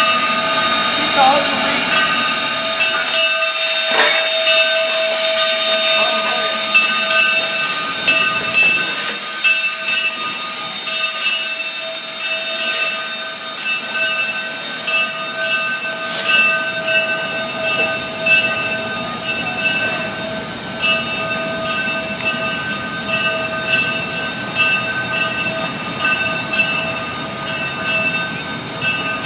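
Granite Rock Company #10, an 0-6-0 tank steam locomotive, hissing steam with a steady whine. From about a third of the way in it works with slow, even chuffs, roughly one a second, as it moves off at walking pace.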